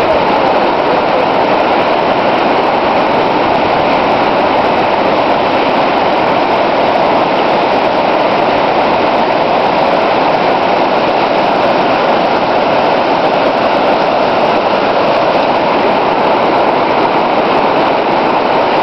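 Whitewater rapids rushing, a loud, steady, unbroken wash of water noise.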